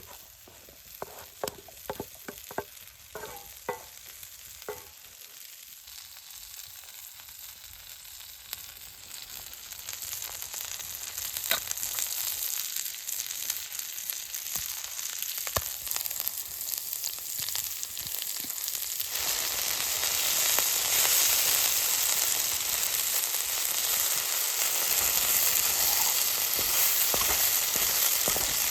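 A few light knocks, then food sizzling in a carbon steel pan over a small wood fire. The sizzle builds steadily and jumps louder about two-thirds of the way through.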